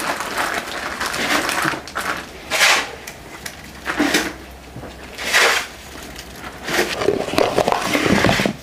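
Hand-handling noise: several short crackling, crunching bursts a second or so apart, with a longer stretch near the end, as something small is broken or peeled by hand over a plastic bowl.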